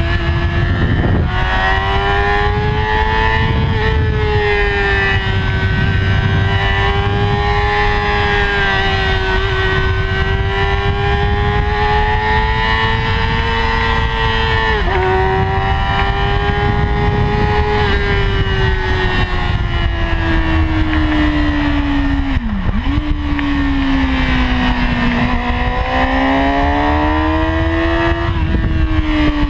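2008 Yamaha R6's 600 cc inline-four engine running hard high in the rev range, its pitch wavering with the throttle and dipping sharply and recovering about a second in, around halfway and more deeply about three-quarters through, with wind rush on the microphone.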